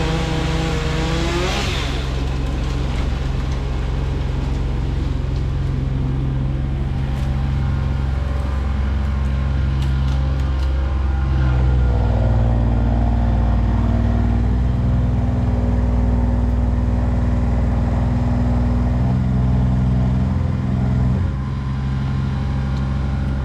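A large engine running steadily at a constant speed. It shifts up to a higher pitch about halfway through and changes again shortly before the end.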